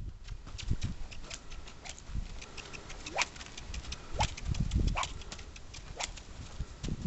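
Hoofbeats of a Percheron x Spotted Draft colt moving on the ground: uneven sharp clicks and a few low thuds, the strongest about three to five seconds in.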